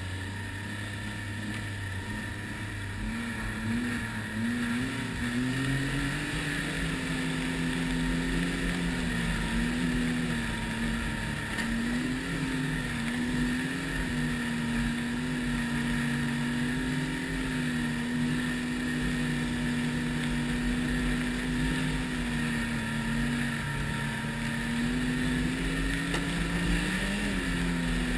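Ski-Doo Renegade 1200 snowmobile's four-stroke three-cylinder engine, heard from the rider's seat. It runs at lower revs at first, picks up about four to six seconds in, then holds a steady cruising speed with slight rises and falls and a brief rev near the end.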